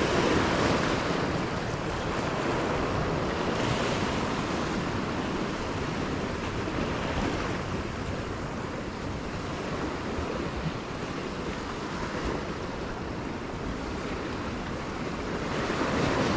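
Ocean surf washing over coastal rocks, with wind on the microphone. The wash swells at the start, again about four seconds in, and once more near the end.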